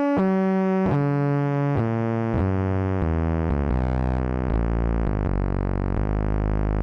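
Make Noise 0-Coast analog synthesizer's slope output, re-triggered by the main oscillator's square wave, producing subharmonic tones of that oscillator. The pitch steps lower about every half second, then settles into a deep, steady buzzing drone.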